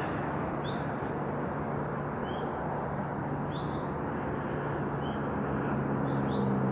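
Outdoor ambience: a steady rushing noise with a low droning hum under it, and about five short, high chirps spaced a second or so apart.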